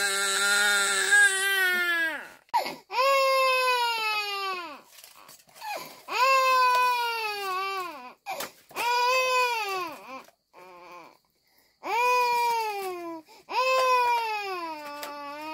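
A young child crying hard in long wails, about six in a row, each one to two seconds long and dropping in pitch at the end, with short breaths between.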